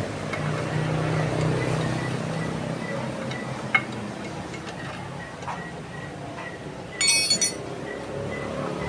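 Motorcycle engine running at a steady idle, with a sharp click a little under four seconds in and a brief ringing metallic clink about seven seconds in.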